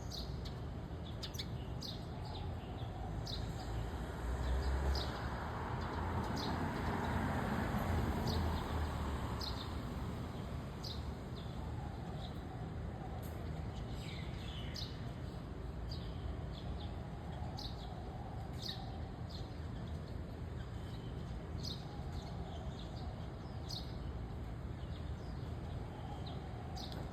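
Sparrows chirping: short, falling chirps, about one a second, repeating throughout. Under them runs a steady background rumble that swells for a few seconds near the start.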